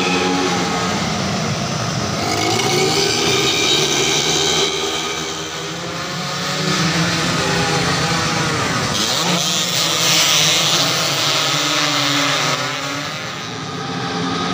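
A pack of small racing motorcycles, automatic scooters and two-stroke underbone bikes, revving hard at high rpm, their pitch rising and falling as they pass. The sound changes abruptly twice.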